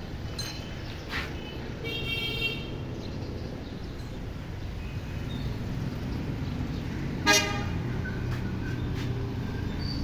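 Steady low rumble of street traffic with vehicle horns: one horn held for about half a second around two seconds in, and a short, sharp toot about seven seconds in, the loudest sound.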